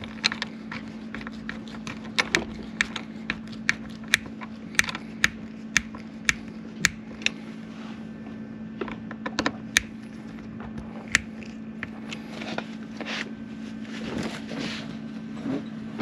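Hand screwdriver driving a screw through the metal plate of an eye-hook latch into a wooden door jamb: a run of sharp clicks, about two a second, then more scattered ones, over a steady low hum.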